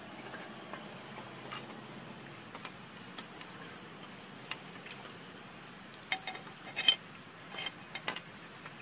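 Scattered sharp clicks and taps, a few at first and then a cluster about six to eight seconds in, the loudest near seven seconds, over steady hiss and a faint steady high-pitched tone.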